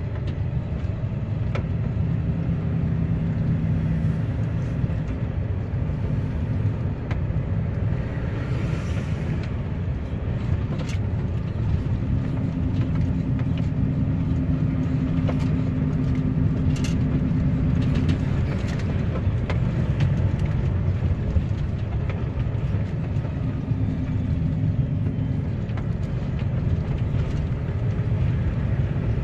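A truck's diesel engine running with road noise while driving slowly: a steady low rumble whose engine note rises for several seconds about twelve seconds in, then drops back.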